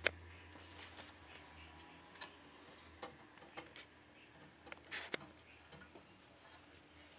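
Scattered light clicks and taps from handling a Brother KH260 knitting machine while contrast yarn is threaded through its tension mast and into the carriage's yarn feeder. The sharpest click comes right at the start, with a close pair about five seconds in.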